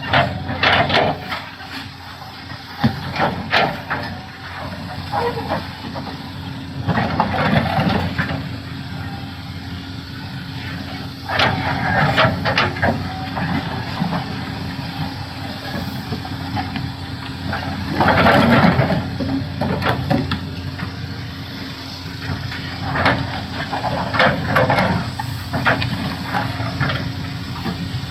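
Doosan DX390 excavator's diesel engine running steadily under load, with a noisy hiss or scrape about every few seconds as the machine works.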